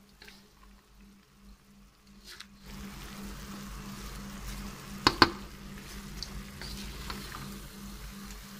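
Sliced onions and beef pieces frying in oil in a karahi: a steady sizzle that swells in about three seconds in as they are stirred. About five seconds in come two sharp knocks of the spoon against the pan.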